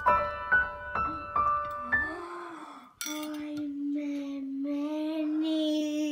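Slow piano music, single notes struck about twice a second, fading out about two seconds in. After a cut, a child's voice holds one long, steady note for about three seconds.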